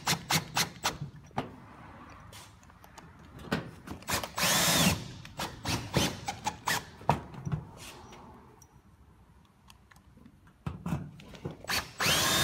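Cordless drill with a 5/16 hex bit driving hex-head roofing screws through metal ridge capping into corrugated steel sheeting. The motor spins up and down in short bursts, about four seconds in and again near the end, with clicks and knocks of the metal between. There is a quieter stretch about two-thirds of the way through.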